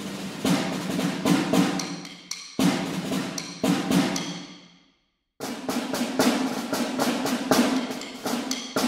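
Sampled orchestral field drum and concert snare drum from ProjectSAM's True Strike library, played from a keyboard: quick strokes and rolls in three phrases. The second phrase fades out into a brief silence about five seconds in, and the snare takes over after it.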